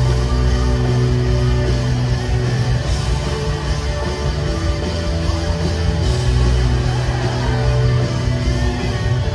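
Live rock band playing an instrumental passage on electric guitars and keyboard, with long held low bass notes that change every few seconds, heard from the audience in a large hall.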